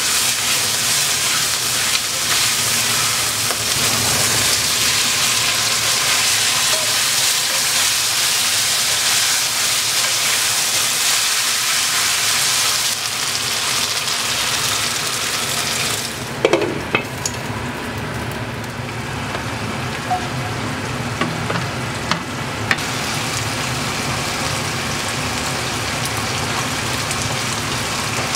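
Rabbit pieces stir-frying in a hot pan: a steady, loud sizzle with stirring. About two-thirds of the way through the hiss softens and a few sharp clicks of the spatula against the pan stand out.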